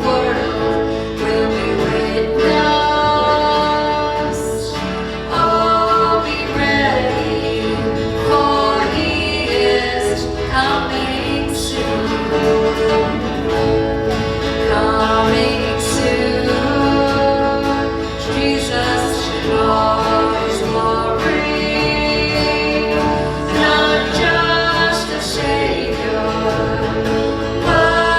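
Gospel worship song with singers and instrumental accompaniment.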